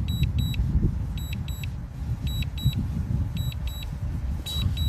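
Drone remote controller giving high double warning beeps about once a second, during return-to-home with the battery low. Wind rumbles on the microphone underneath.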